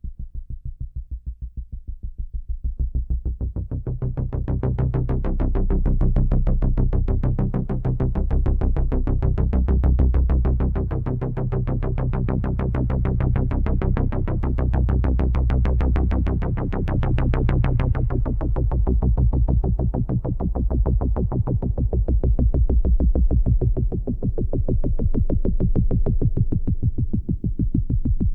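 Sequential Prophet X synthesizer patch: a fast, evenly repeating pulse over sustained low bass notes, swelling in over the first few seconds, with the notes changing a few times.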